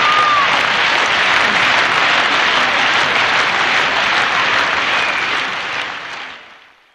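Audience applauding, steady at first and then fading out over the last second and a half.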